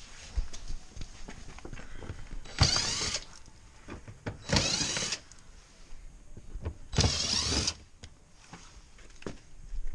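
Cordless drill-driver with a T20 Torx bit spinning in three short bursts, each under a second, backing out the bumper's Torx screws, with small clicks and knocks between the bursts.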